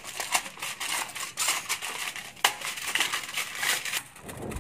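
Aluminium foil crinkling and crackling in irregular bursts as hands press and crimp it over a baking tin, quieter in the last half second.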